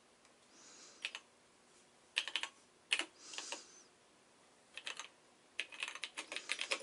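Typing on the keys of a Tandy TRS-80 Model 100 keyboard: short irregular bursts of key clicks with pauses between them, growing into a faster, denser run near the end.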